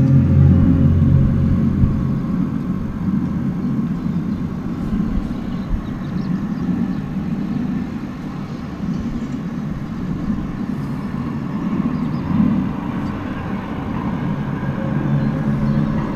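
Unexplained low droning rumble from outside, the kind of 'strange sound' reported worldwide. A steady low hum is strongest for the first two seconds, and the drone swells and fades slightly throughout.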